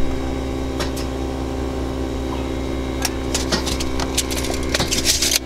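A steel tape measure being stretched and handled, its blade clicking and rattling in a quick run over the last two seconds or so. Under it runs a steady low mechanical hum.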